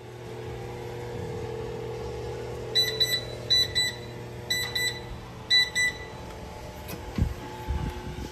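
Kitchen oven's electronic alert: four pairs of short high beeps about a second apart, over a steady hum. Soft low thumps follow near the end as the oven door is handled.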